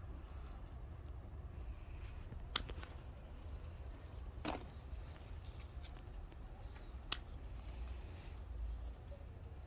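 Scissors snipping through chilli pepper stems: a few short, sharp snips a couple of seconds apart.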